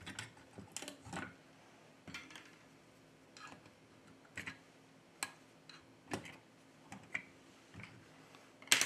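Scattered light clicks and knocks of metal and plastic parts as a metal screen-separator machine and its suction cups are handled and adjusted, with one louder sharp knock near the end.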